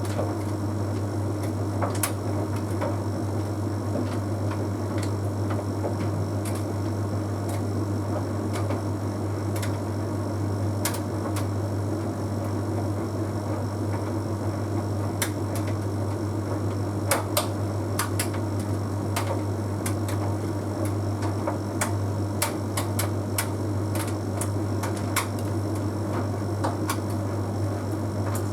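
Bosch Series 6 heat pump tumble dryer running mid-cycle on Easy Care: a steady low hum from the motor and heat pump, with scattered light clicks at irregular intervals as the load tumbles in the drum.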